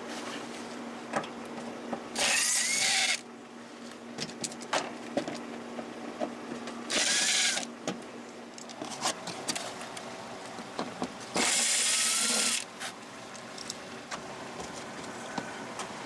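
Cordless Craftsman driver spinning out small Torx T15 screws from a truck's inner fender liner, in three short runs of about a second each. Quieter clicks and handling noise come between the runs.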